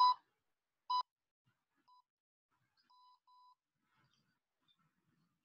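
Electronic workout interval timer beeping: two short, loud beeps a second apart, then fainter beeps around two seconds and three seconds in, marking the changeover to the next exercise interval.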